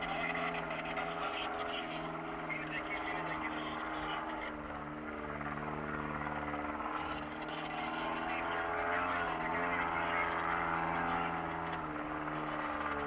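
Kia Sportage engine running steadily under light load as it drives along a rough dirt track, heard from inside the cabin over the rumble of tyres on the dirt. A little past halfway the engine note dips briefly in pitch and rises again.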